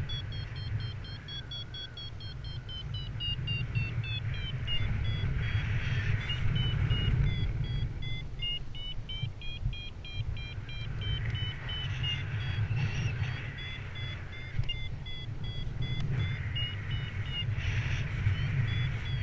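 Paragliding variometer sounding over a steady rush of wind on the camera microphone. Its tone wavers up and down in pitch and breaks into rapid beeps in the middle and again near the end, the way a vario signals the glider climbing.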